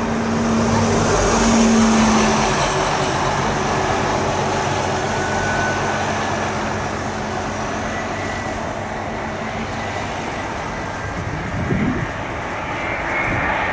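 Heavy jet airliner on final approach passing overhead: a loud rush of engine noise with a steady low hum under it, peaking about two seconds in and then slowly fading.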